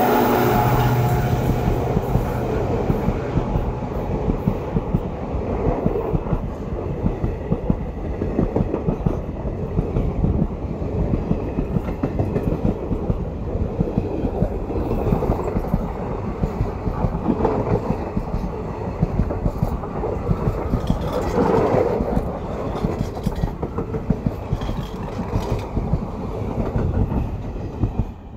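ICF passenger coaches of a diesel-hauled express rolling past close by, wheels clicking rhythmically over rail joints in a steady clickety-clack. The WDG4 diesel locomotive's engine drone fades out over the first couple of seconds.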